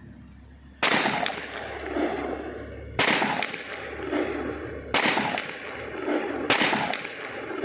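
Zigana Sport .30 bore pistol fired four times in single shots, about two seconds apart with the last a little quicker. Each sharp report is followed by a long rolling echo.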